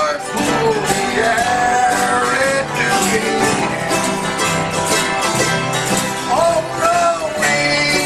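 Live bluegrass music: a man sings lead over strummed acoustic guitars and picked banjo, the melody held in long sliding notes.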